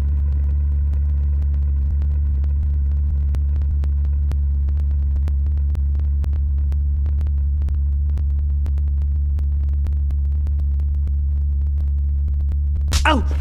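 A loud, steady, low droning rumble, engine-like, with faint high tones and light ticking over it. Near the end a sudden loud cry of a voice cuts in.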